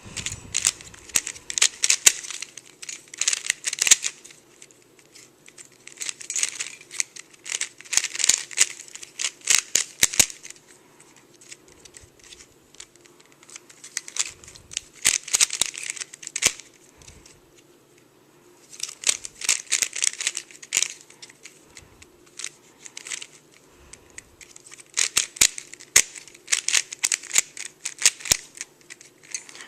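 Plastic speed cube being turned by hand: bursts of quick clicking, rattling layer turns several seconds long, broken by short pauses while the solver looks for the next move.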